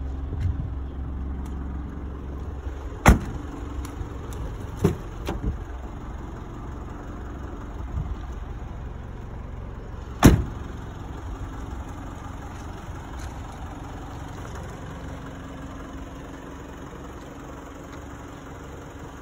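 Nissan Pathfinder's engine idling steadily, with car doors slammed shut: one loud slam about three seconds in, a few lighter knocks shortly after, and the loudest slam about ten seconds in.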